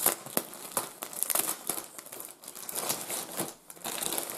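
A plastic bag crinkling and rustling as it is handled and pulled open by hand, with irregular crackles and two short lulls.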